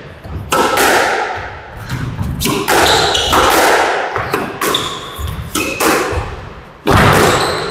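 Squash rally: the ball is struck by rackets and slaps off the court walls about once a second, each hit echoing in the enclosed court, the loudest near the end. Short high squeaks come between the hits.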